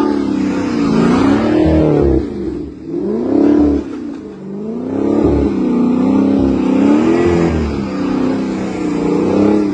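A car engine revving hard in repeated surges, its pitch rising and falling about six times, like a car being whipped around in circles.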